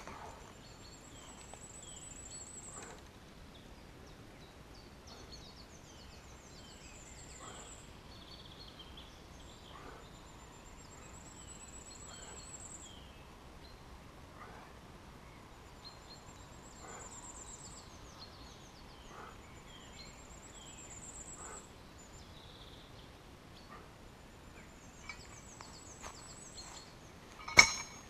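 A small songbird repeatedly sings a short, very high-pitched trill, about every three to five seconds, over quiet forest ambience with a few faint clicks. Near the end there is one sudden loud knock as the weighted curl bar is set down on the ground.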